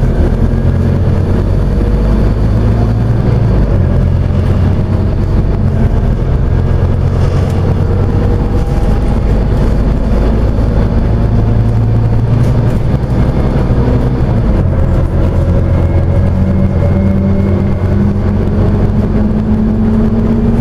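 Scania OmniCity single-deck bus's diesel engine running under way, heard from inside the passenger saloon over steady road noise. The engine note rises several times as the bus pulls and changes speed.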